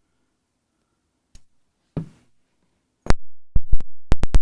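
Metal parts of a disassembled Segal lock being handled on the bench: a faint click and a short rustle, then about six sharp, loud knocks in quick succession near the end.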